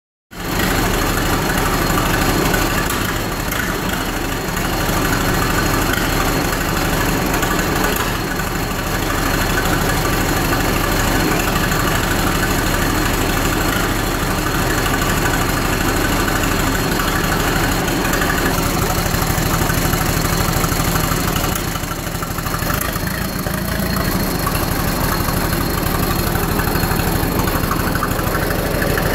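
1936 Fordson N tractor's four-cylinder side-valve engine idling steadily.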